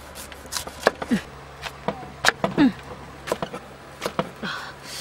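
A cleaver chopping a pineapple on a wooden chopping block: a dozen or so irregular sharp knocks as the blade cuts through the fruit and strikes the wood.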